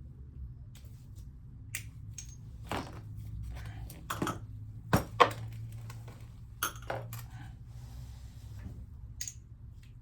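Metal hand tools and parts clinking and knocking together in a run of irregular sharp clicks, the loudest pair about halfway through, over a steady low hum.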